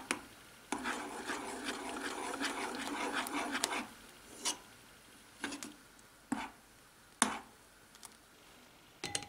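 Metal spoon stirring and scraping a thick mush of coconut flakes cooked in milk in a saucepan for about three seconds, then a handful of separate clinks of the spoon against the pot.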